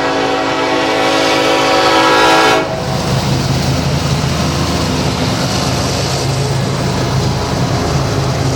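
Nathan Airchime K5LLA five-chime locomotive horn sounding one held chord that cuts off about two and a half seconds in. A steady rumble and rail noise from the train carry on after it.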